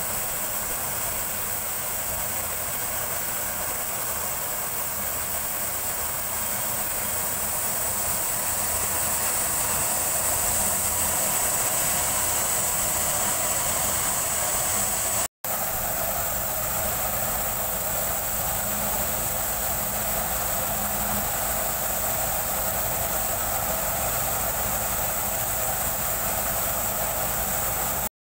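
Steady construction-site machinery noise from the diesel engines of a truck-mounted concrete pump and a concrete mixer truck running, with a high hiss over it. The sound drops out for a moment about halfway through.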